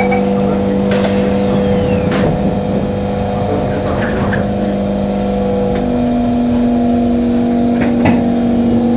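Singapore MRT train doors closing: the last of the rapid door-closing warning beeps, then the doors slide shut with a falling whine and shut with a knock about two seconds in. Under it the train's electrical equipment hums steadily, the hum stepping up slightly in pitch about six seconds in.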